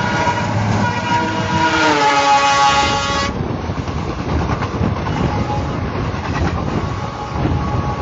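Horn of an ALCO-engined WDM-3A diesel locomotive sounding one long blast as it passes close by at speed. The horn drops in pitch about two seconds in and cuts off sharply a little over three seconds in. It is followed by the steady rush and wheel noise of express coaches running past alongside.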